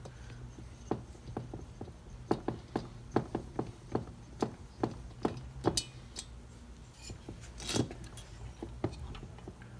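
Small metal tools and parts clicking and tapping as a cylinder mounting screw is worked into place by hand: about a dozen irregular sharp clicks, then a brief rustle near the end, over a steady low hum.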